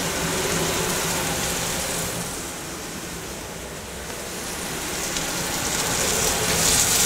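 Ribeye steak searing in a hot cast-iron skillet, a steady sizzling hiss over the low hum of a range hood fan. The sizzle dips a little in the middle and grows louder near the end.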